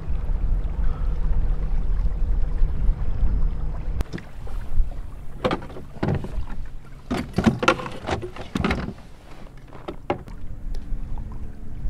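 Kayak moving on the water, with wind rumbling on the microphone for the first few seconds. From about five to nine seconds in comes a run of sharp splashes and knocks from the paddle and hull.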